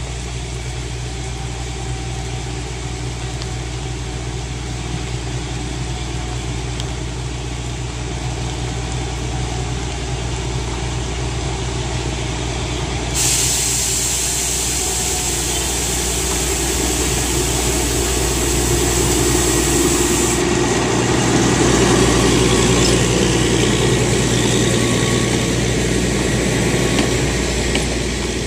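Narrow-gauge diesel locomotive's engine running steadily as the train slowly approaches, growing louder as it comes near, then its coaches rolling past close by. About halfway in, a loud hiss starts suddenly and cuts off about seven seconds later.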